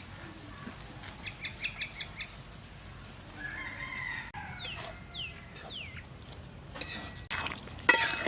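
Chickens clucking in a quick run, then a rooster crowing about three and a half seconds in, followed by a few short falling chirps. A sharp knock near the end is the loudest sound.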